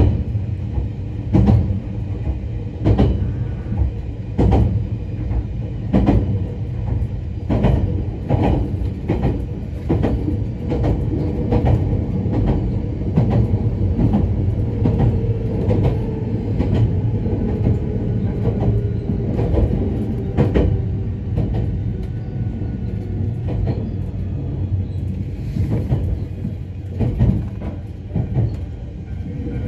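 An ex-Odakyu HiSE Romancecar electric train running at speed, heard from its observation seat. Wheels clack over rail joints about every second and a half over a steady low rumble, and the clacks thin out near the end.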